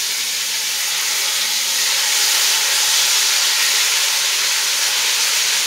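Red snapper head and tail pieces frying in hot coconut oil: a steady sizzle that swells about two seconds in, the fish browning.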